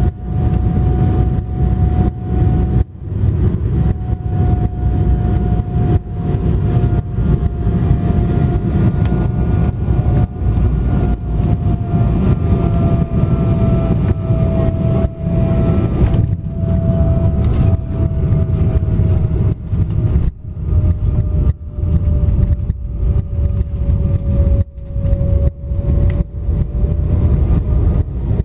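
Cabin noise of an Embraer 195 airliner on landing: a steady low rumble with the whine of its turbofan engines, which slowly falls in pitch as the jet comes down onto the runway and starts its rollout. The sound cuts out briefly many times.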